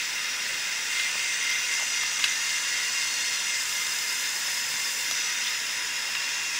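Bridgeport vertical mill's spindle running with a twist drill cutting into 7075 aluminum: a steady high hiss with faint whining tones.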